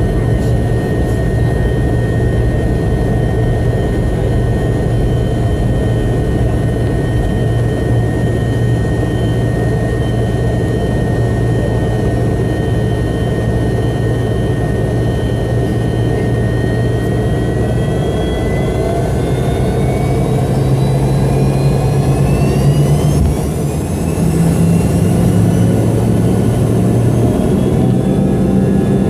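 McDonnell Douglas DC-9-32's Pratt & Whitney JT8D turbofan engines heard from inside the cabin, running with a steady whine over a deep hum. About two-thirds of the way in, the whine rises steeply in pitch over several seconds and settles higher as the engines spool up to takeoff thrust.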